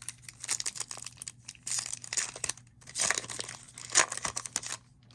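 A Topps Chrome baseball card pack's foil wrapper being crinkled and torn open: a run of crackling rustles with a sharp tear about four seconds in.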